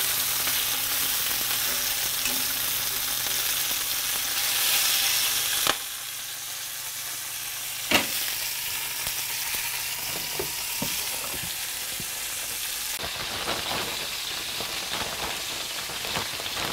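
Pieces of snapping turtle meat frying in oil in a skillet, a steady hissing sizzle that drops in level a little under six seconds in. A sharp click comes about eight seconds in.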